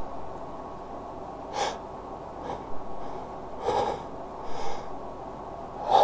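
A man's sneeze build-up: several short, sharp gasping breaths about a second apart as a sneeze tickles but doesn't come out.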